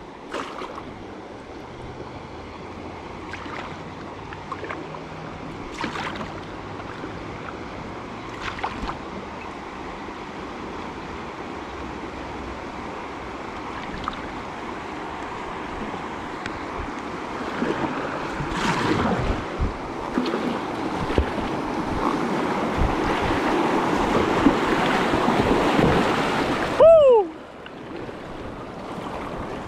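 Moving river water with wind on the microphone and a few sharp paddle splashes. The rush of water grows louder over the last ten seconds, then drops off abruptly with a short falling whistle near the end.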